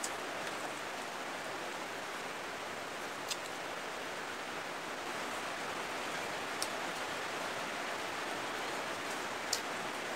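Steady, even hiss, with a few faint sharp clicks about three seconds apart from eating by hand.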